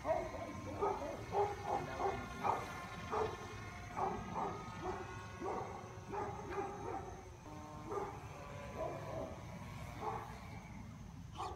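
A dog barking in short, quick yips, about two a second at an irregular pace, over a low steady background rumble.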